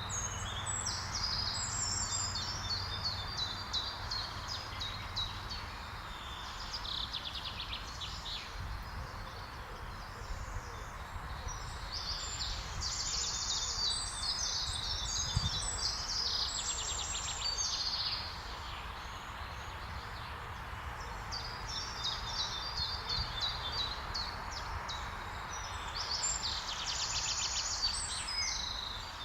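Songbirds singing and calling: many high, quick repeated notes and fast trills, over a steady background noise.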